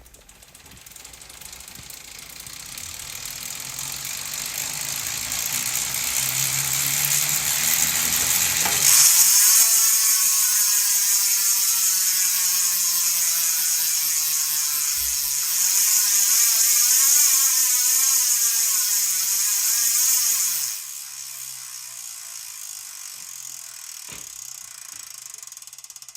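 DT Swiss 240 XDR ratchet freehub freewheeling as the wheel is spun. The buzz builds for several seconds and then becomes a loud, high-pitched whirring buzz whose pitch slowly falls as the wheel coasts. The pitch wavers up and down for a few seconds, then cuts down sharply to a quieter ticking about three-quarters of the way through.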